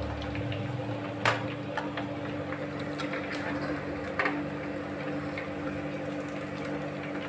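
Sliced bitter gourd frying in hot oil in a kadhai, a steady sizzle, with a few sharp clinks of a steel slotted spoon against the pan as the slices are lifted out, the loudest about a second in.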